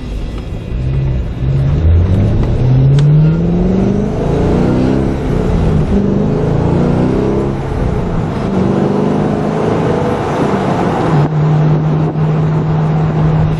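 Car engine accelerating away, its pitch climbing in several rising steps as it shifts up through the gears. Near the end it settles into a steady drone at cruising speed.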